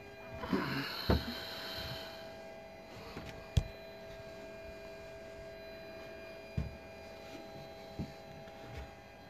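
A steady hum runs throughout, with a brief hiss in the first two seconds and a handful of dull knocks, the sharpest about three and a half seconds in.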